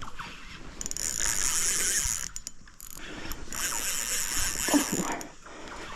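Shimano spinning reel whirring and ticking in two bursts of about a second and a half each, while a hooked fish is being fought on the line.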